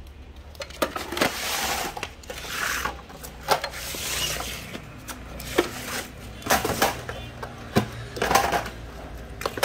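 Hard plastic power-tool battery chargers being handled and set down: irregular clacks and knocks, with rustling between them.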